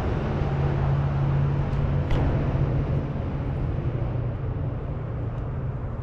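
A distant engine's steady low drone, fading slowly over a few seconds.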